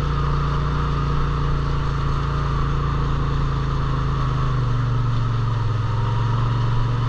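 Vehicle engine running steadily, its pitch dropping slightly about four and a half seconds in.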